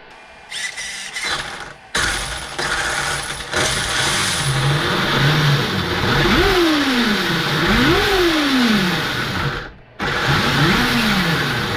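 Traxxas UDR RC truck's electric motor and drivetrain run up on the throttle, with a whine that rises and falls twice and then again after a brief cut near the end.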